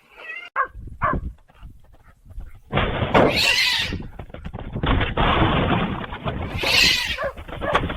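An animal calling several times over a loud, rumbling, noisy background, with two harsher, louder cries about three and seven seconds in.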